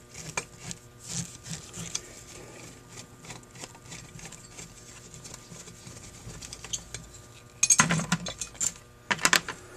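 Screwdriver backing out the throttle-body screws of a Holley 1904 one-barrel carburetor: a run of small metal clicks and ticks, with two louder clatters of metal parts near the end.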